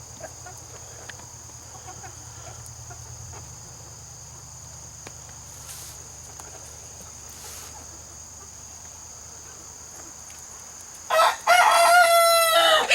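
An Australorp rooster crows once near the end: a loud, pitched call with a short opening note and then a long held one. Before it there is only a low chicken-yard background.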